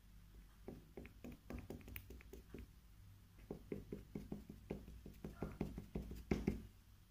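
The flat end of a pencil dabbed with acrylic paint tapping quickly on canvas paper on a table, stamping dots. The taps come in two runs of several a second, with a short pause between them, and the last few taps are the loudest.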